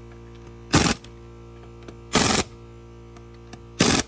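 Snap-on impact gun firing in three short bursts, about a second and a half apart, running lug nuts down on a wheel. A steady music bed runs underneath.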